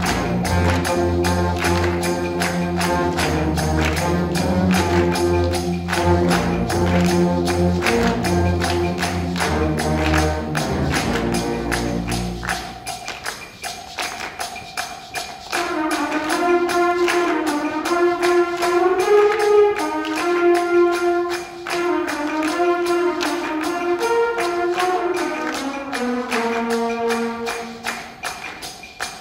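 Student concert band playing: the full band with low brass and a steady percussion beat, then about twelve seconds in the low parts drop out and a higher melody carries on, softer, over the percussion.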